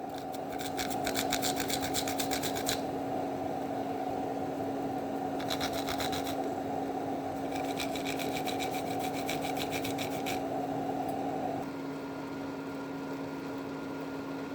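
Rapid, rhythmic rasping strokes, about eight a second, in three bouts with short pauses between them, over a steady low hum.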